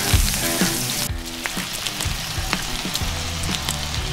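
Egg-batter fishcake pancake sizzling in oil in a frying pan, over background music with a steady beat. The high sizzling hiss drops away about a second in.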